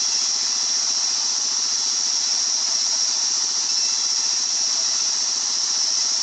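Circular sawmill running steadily: a low, evenly pulsing engine drone under a loud, high, even whine.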